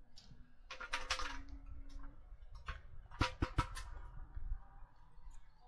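Cooking utensils clicking and knocking on a charcoal grill as a piece of chicken is lifted off, in two short clusters about a second in and about three and a half seconds in.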